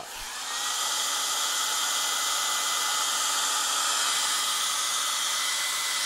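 Hair dryer switched on, spinning up over about a second and then running steadily: a loud rush of air with a thin, steady motor whine.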